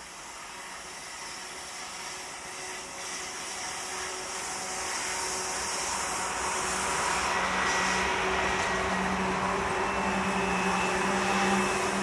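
Diesel freight locomotives working upgrade, their engine drone with a steady low hum growing steadily louder as the train approaches.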